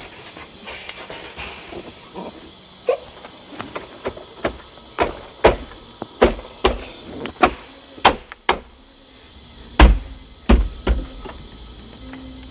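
Truck dashboard panel being pushed and knocked into place: a run of irregular sharp knocks and clicks, the loudest two about ten seconds in.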